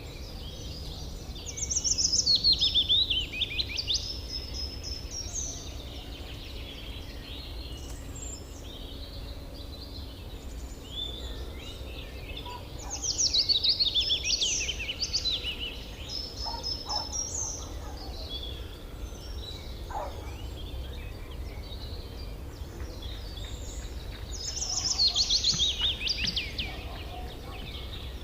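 Outdoor ambience of songbirds: one bird sings a loud phrase of quick falling notes three times, roughly every eleven seconds, while other birds chirp softly in between over a steady low rumble.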